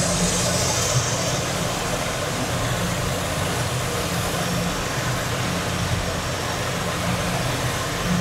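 Metal lathe running steadily with its chuck spinning, a constant machinery hum with a low drone, and a brief hiss in the first second.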